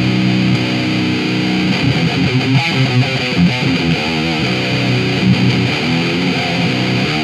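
Electric guitar played with heavy distortion through an Orange Micro Dark amp at full gain into a Marshall 4x12 cabinet, pushed by a breadboarded single-transistor 2N5089 preamp boost that is switched on near the start. Held chords at first, then busier riffing.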